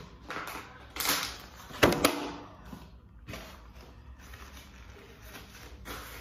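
Paper food wrapper rustling and crinkling as it is handled, with a few short bursts and two sharp crackles about two seconds in, then softer rustling.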